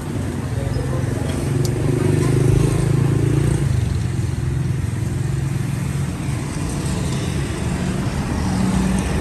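A motor vehicle engine running steadily nearby, a low hum that grows loudest a couple of seconds in, over outdoor background noise.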